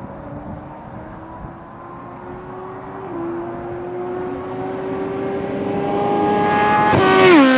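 Aprilia RSV4 1100 V4 engine pulling hard and getting louder. Its pitch climbs steadily, dips once about three seconds in and climbs again, then falls sharply near the end, as with gear upshifts.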